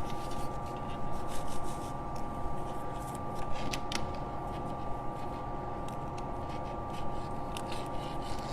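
Webbing strap being fed through a buckle and handled: scattered light clicks and rustles over a steady background hum.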